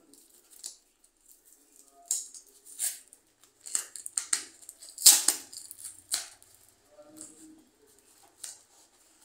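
Brown paper envelope of a postal parcel being handled and torn open by hand: a series of short paper crackles and tears, the loudest about five seconds in.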